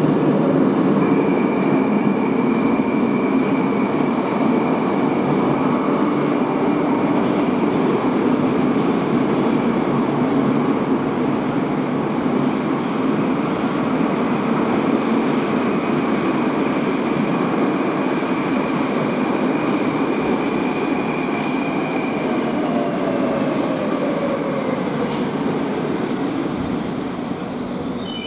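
Moscow Metro train running between stations, heard from inside the carriage: a steady loud rumble of wheels on rail with a thin steady whine over it. A faint falling whine comes about twenty seconds in, and the noise eases off a little near the end.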